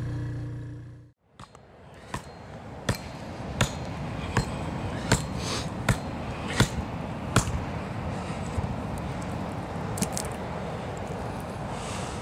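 Motorcycle engine running, fading away and cutting off about a second in. Then a steady hiss with sharp, evenly spaced knocks, about one every three-quarters of a second.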